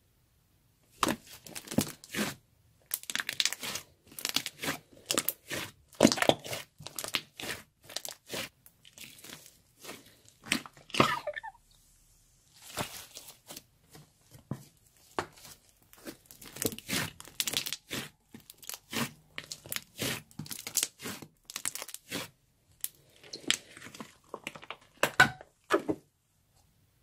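Thick, sticky slime being stretched and folded by hand, giving rapid wet clicks and crackles as it pulls apart and trapped air pockets pop. The sound comes in bursts with brief pauses.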